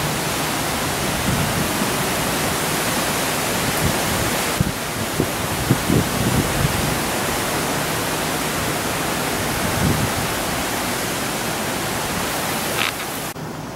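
Steady rushing hiss of wind and moving floodwater, with a few soft low thumps about midway through. Near the end it drops quieter.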